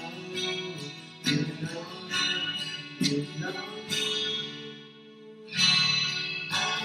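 Steel-string acoustic guitar, a Yamaha with a capo, strummed in chords about a second apart, with a man singing along. Around four seconds in a chord is left to ring and fade before the strumming picks up again.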